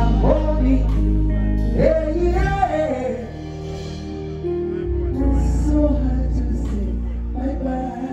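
Live band music with a male voice singing drawn-out, bending melodic lines over a heavy bass. The bass drops out for a couple of seconds about three seconds in, then returns.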